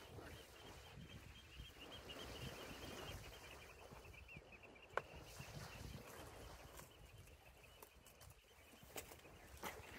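Near silence: the faint whirr of a multiplier fishing reel being wound in, with one sharp click about five seconds in and a few scuffs of boots on rock near the end.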